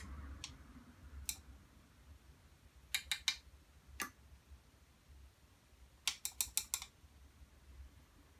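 Sharp clicks and taps of a paintbrush against a hard palette as watercolour paint is mixed: a quick run of three about three seconds in, a single tap a second later, and a run of five a couple of seconds after that, over a faint low hum.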